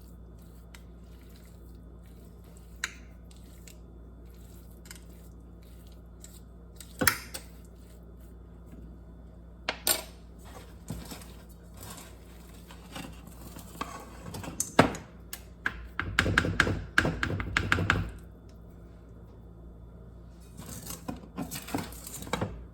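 A spoon spreading thick brownie batter in a baking pan: scattered knocks and clinks of the spoon against the pan, with a busier stretch of rapid scraping about two-thirds through and again near the end, over a steady low hum.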